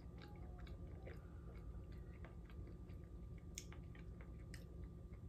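Faint chewing of food by a person eating, with scattered soft mouth clicks over a faint steady hum.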